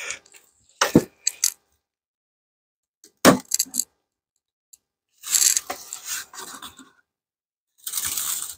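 Bricks set down with two sharp knocks, about one and three seconds in. Then a metal-topped outer cover is worked loose and lifted off a wooden beehive box, scraping against the wood twice.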